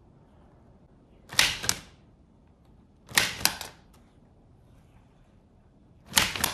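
Wooden ROKR model typewriter clacking in three short bursts of sharp clicks, a few seconds apart.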